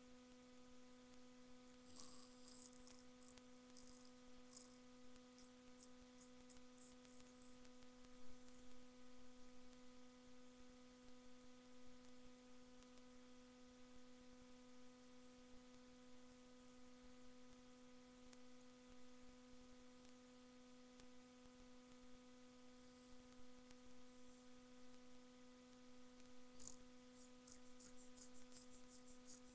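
Near silence with a steady electrical hum. Two short runs of faint, rapid high-pitched clicking come through, about two seconds in and again near the end.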